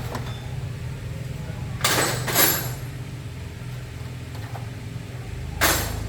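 Motorcycle engine idling steadily, with two short rushing noises on top, about two seconds in and near the end.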